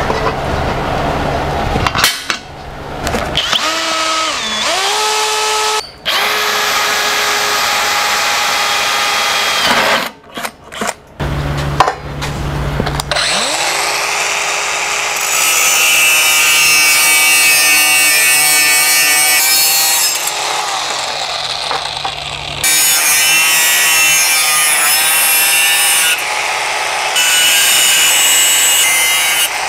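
Bosch cordless angle grinder working steel. Its motor whine slides down and back up as it slows and speeds up. About halfway through it spins up again and grinds and cuts through steel with a steady high whine and harsh grinding noise. The sound breaks off abruptly a few times.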